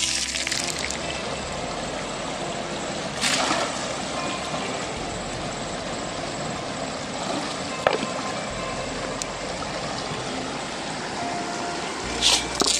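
River water rushing steadily through a wooden gold-panning sluice box. Loads of gravel and stones splash into it about three seconds in and again near the end.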